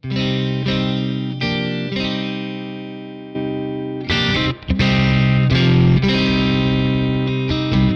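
Electric guitar played through a JHS Clover preamp boost into a Fender '65 Deluxe Reverb amp, a clean, fat boosted tone: picked notes and chords ringing out with long sustain, a fresh attack about every second.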